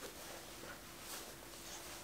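Quiet room tone: a faint hiss with a thin steady hum and a few soft, faint rustles about a second in.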